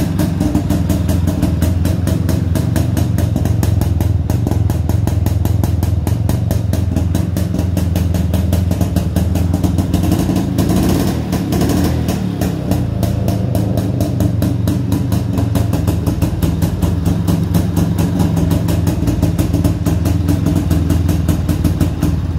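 IŻ 49 motorcycle's single-cylinder two-stroke engine idling steadily on its CDI electronic ignition, with a brief change in tone about halfway through.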